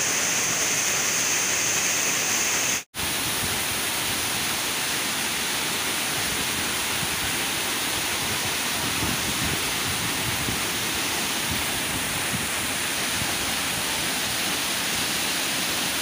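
Waterfall: a steady rush of water pouring down a rock face into a pool. About three seconds in, the sound cuts out for an instant, then the rush carries on.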